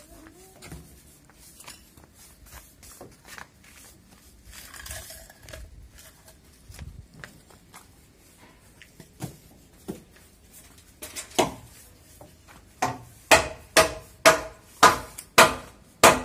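Scattered light knocks and clicks, then a steady run of loud, sharp hammer blows with a metallic ring, about two a second, over the last few seconds.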